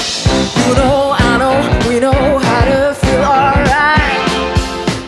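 Live rock band playing: a drum kit keeping a steady beat under guitar and keyboards, with a wavering melody line on top.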